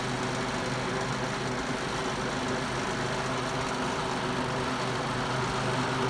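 1971 Galaxy Model 3700 12-inch box fan running steadily on high: the rush of air from its five-blade blade over a steady motor hum, with the bad vibration the fan has at high speed.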